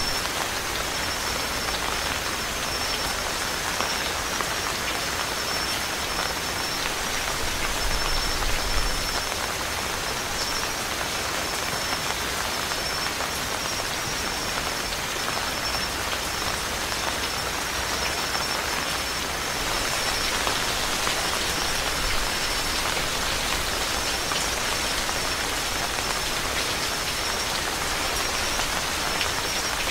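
Steady monsoon rain falling on and through the leaves of a plum tree: a dense, even patter of drops that never lets up. A thin, steady high tone runs alongside it.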